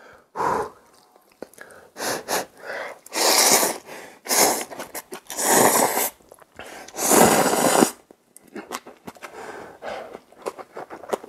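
Cup ramen noodles being slurped up in about five long, loud sucks. Quieter chewing and mouth clicks follow near the end.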